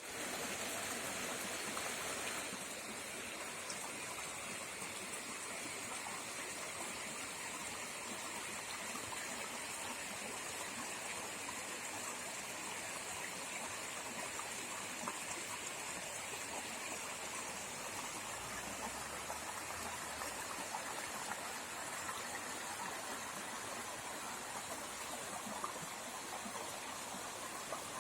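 River water flowing over rocks: a steady rushing and babbling, slightly louder in the first couple of seconds.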